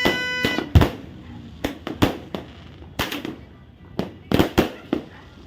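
Firecrackers going off in an irregular string of about ten sharp bangs, the loudest about a second in and a quick cluster near the end. A steady pitched horn-like tone stops within the first half second.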